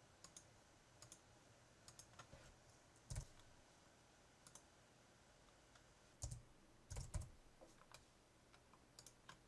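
Faint typing on a computer keyboard and mouse clicks: scattered single keystrokes, with a few louder clicks about three seconds in and again around six to seven seconds in.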